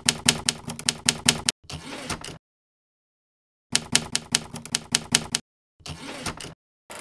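Typewriter keys clacking in two quick runs of about six strokes a second. Each run is followed by a short rasping sweep, and there is dead silence between them.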